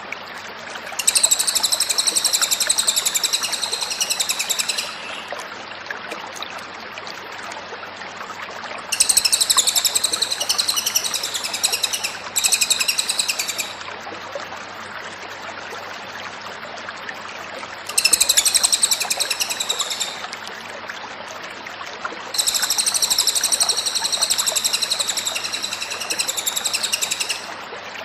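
Cililin bird singing in bouts of fast, high-pitched trilling, each lasting one to five seconds, five times with short pauses between, over a steady background hiss.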